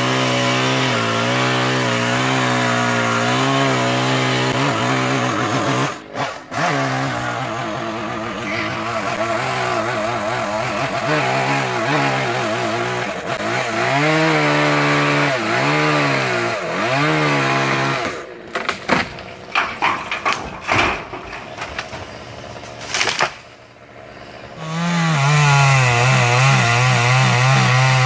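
Chainsaw running at high revs and cutting into a tree limb, its pitch sagging and recovering again and again as the chain bites into the wood. About two-thirds of the way through it drops away into a broken, crackly stretch, then revs back up to a steady high whine near the end.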